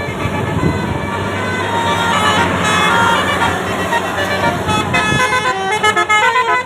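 Bus musical air horn with 18 trumpets (telolet basuri) playing a quick tune of short notes that step up and down in pitch, busiest in the last two seconds, over steady vehicle noise. The sound is piercing.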